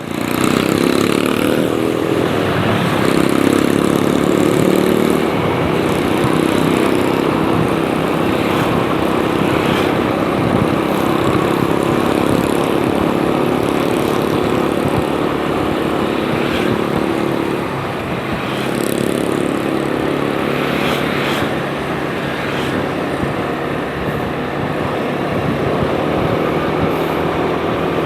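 Motorcycle engine running at a steady speed while riding, with rushing wind noise over it.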